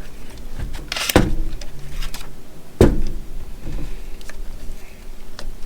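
Handling noise: objects knocked and set down on a hard surface, with two louder knocks, one about a second in and one near three seconds, and a few lighter clicks between.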